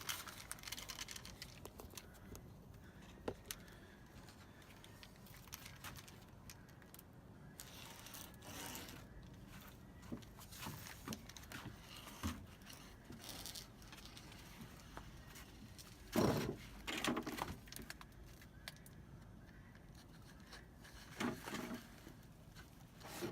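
Intermittent light scrapes, clicks and rattles of metal screen mesh being worked into a screen door frame and pressed in tight, with two louder scraping bursts about two-thirds of the way through and near the end.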